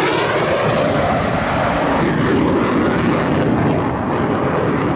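Loud, steady jet noise from the Blue Angels' F/A-18 Hornet fighter jets flying by.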